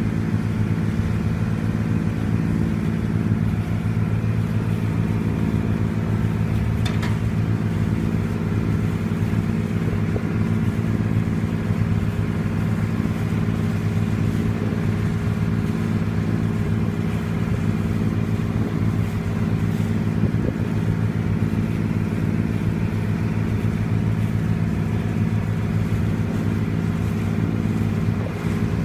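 Passenger ferry's engine running steadily: a constant low drone. A short tick about seven seconds in.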